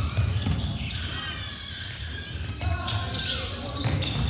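Background chatter of spectators' voices, too distant to make out words, over a steady low rumble.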